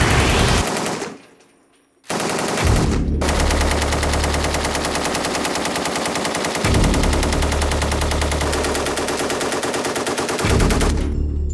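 SAR 762 MT 7.62 mm machine gun firing on full automatic: a short burst, a pause of about a second, then long, near-continuous bursts that stop shortly before the end.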